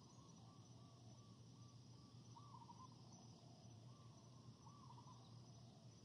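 Faint natural forest ambience: a steady high chirring of insects, with a run of short, evenly repeated calls from a small animal in the first two seconds and a couple of louder calls near the middle and later on, over a low steady hum.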